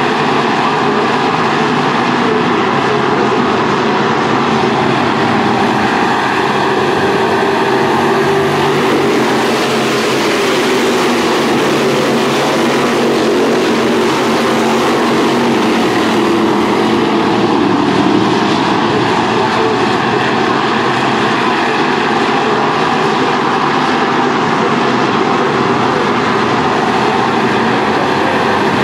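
Several V8 Thunder Stock race car engines running hard together, a loud continuous sound with the engine notes rising and falling slightly.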